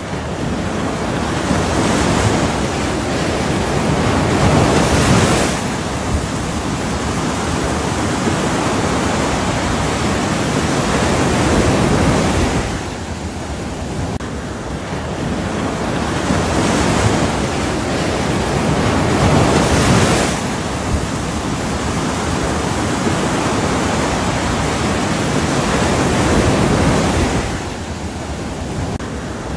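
Ocean surf: waves washing in and drawing back, a steady rushing noise that swells and eases every several seconds.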